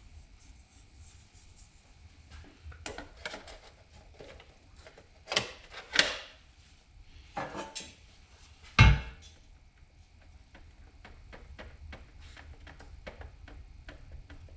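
Hands handling plastic instrument-cluster parts, a clear plastic gauge lens and a black bezel, being set in place and wiped with a cloth: scattered light clicks and rustles, a few louder scrapes around the middle, and one dull thump about two-thirds of the way through.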